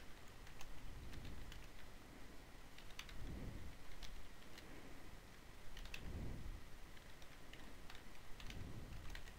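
Computer keyboard typing: faint, irregular keystrokes as a line of text is entered.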